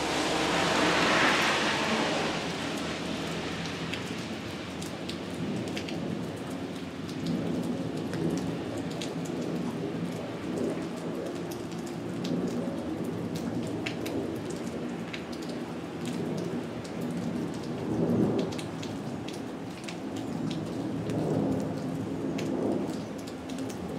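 Steady rain with single drops ticking, and thunder rumbling in slow swells; the loudest swells come about a second in and again about three-quarters of the way through.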